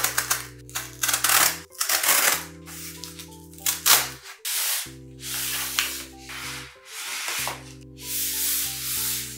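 Cardboard mailer being torn open along its tear strip in several quick ripping pulls, then longer scraping of cardboard as the box inside is slid out, over soft background music.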